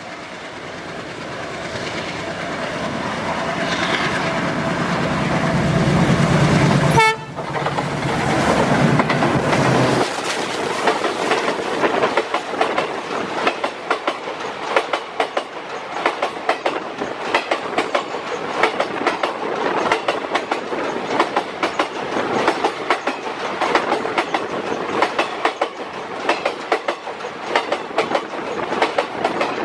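WDM3A diesel-electric locomotive with its ALCO engine running, growing louder as it approaches and dropping off sharply as it passes about seven seconds in. Then the passenger coaches roll by close at hand, their wheels making a steady clickety-clack over the rail joints.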